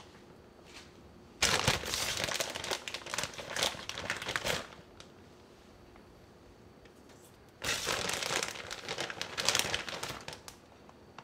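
Plastic bag of shredded mozzarella crinkling as it is handled and a hand reaches in for cheese, in two stretches of a few seconds each with a quiet gap between.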